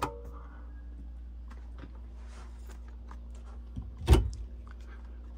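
A push-button puck light clicks once at the start, then about four seconds in an overhead wooden cabinet door is pulled open with a single sharp clack, over a steady low hum.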